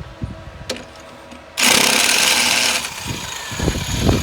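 A power tool runs in one loud burst of about a second, starting suddenly partway in and cutting off, as the jammed front suspension fittings are worked loose; a few dull low knocks follow near the end.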